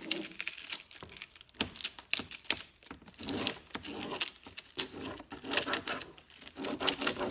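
Plastic backing sheet of a Prima rub-on transfer crinkling and being rubbed down onto a painted surface, in irregular scratchy strokes.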